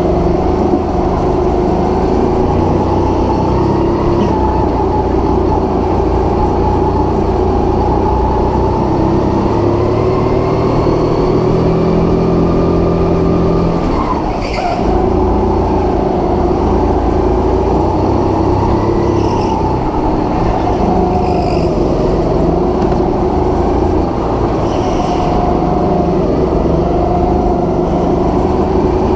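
Go-kart engine running at racing pace on an indoor kart track, its pitch rising and falling with the throttle through the corners. About halfway through the throttle is briefly let off: the pitch drops and the sound dips before it builds again.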